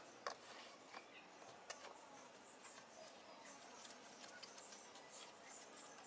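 Faint scraping and patting of a steel trowel working wet cement mortar, scooped from a metal pan and spread out flat, with two sharp clicks in the first two seconds.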